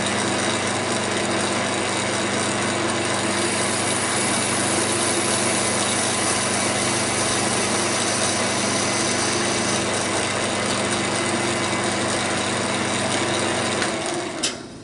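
AL-51G bench metal lathe running steadily while a boring bar is fed through a cut in the bore: a dense machine noise with a steady hum and several steady tones. It stops with a click near the end.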